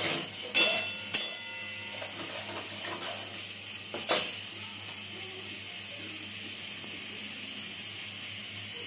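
Whole spices sizzling in hot oil in a kadai, a steady hiss, with a steel spatula knocking and ringing against the pan twice in the first second or so and once more about four seconds in.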